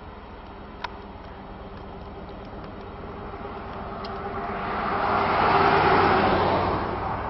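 Helicopters running on the ground with rotors turning: a CH-47 Chinook and a UH-60 Black Hawk, a steady mechanical hum with a faint steady whine. About five seconds in, a louder rush of noise swells and fades away again.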